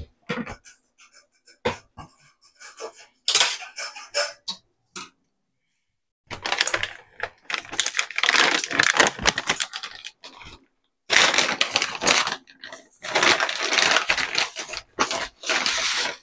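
A few scattered clicks and knocks, then about six seconds in a plastic bag is handled, rustling and crinkling in long bursts with a short break partway through.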